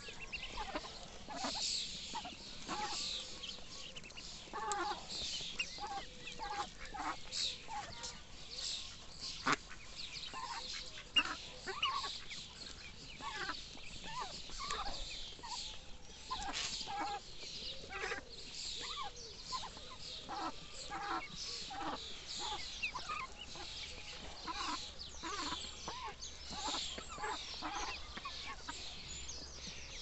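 A flock of ducklings peeping, with many short, high chirps overlapping without a break and lower calls mixed in. Two sharp knocks stand out about a third of the way through.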